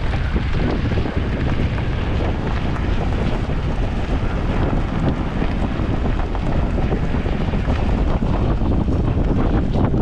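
Wind buffeting the microphone: a steady, dense rumble with no break.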